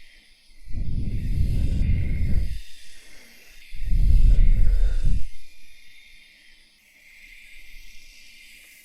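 ASMR mock shave: two long rubbing strokes right against the microphone, each lasting a second or two, with a fainter third stroke near the end.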